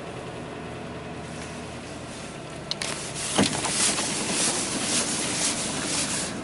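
1997 Ford F250's 5.8-litre Windsor V8 running, with a light tapping; the sound turns suddenly louder and harsher about three seconds in.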